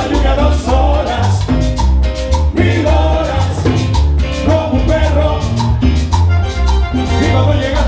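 Live Latin dance band playing salsa: congas and drums keep a steady beat under a strong bass line, with a lead singer on the microphone.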